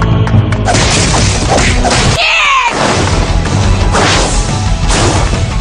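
Anime battle sound effects: hits, crashes and whooshes over dramatic action music.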